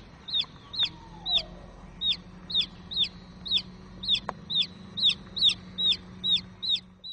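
A domestic chick peeping loudly and rapidly, about three short, high, downward-sliding peeps a second without a break.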